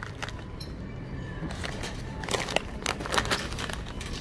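Wire shopping cart rattling as it is pushed along a store aisle, with scattered clicks and knocks that bunch together between about two and three and a half seconds in.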